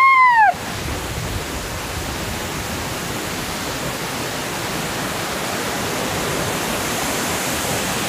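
Steady rushing of a large waterfall, the Tharabu falls, growing slightly louder toward the end. It opens with a brief, high, rising-and-falling whoop about half a second long.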